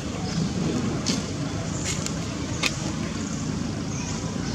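Steady low outdoor background rumble, with three short sharp clicks about one, two and nearly three seconds in.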